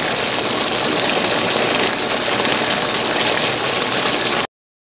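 Chicken curry in coconut milk sizzling and bubbling in the pan as it is stirred with a wooden spoon; a steady hiss that cuts off suddenly near the end.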